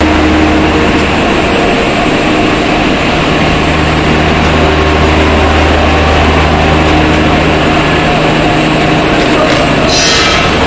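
Wood-plastic composite extruder's large electric drive motor and gearbox running, a loud steady hum under dense machine noise. A brief high hiss joins near the end.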